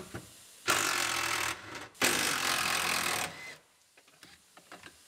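Cordless impact wrench running in two bursts, a short one and then a longer one, backing out a seatbelt anchor bolt.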